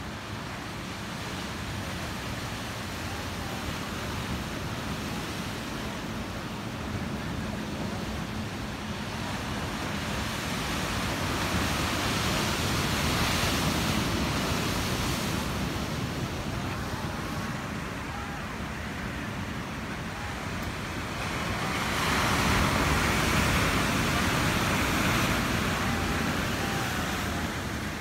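Ocean surf breaking over rocks below a cliff: a steady rushing wash that swells louder twice, about a dozen seconds in and again a little after twenty seconds, as waves crash on the rocks.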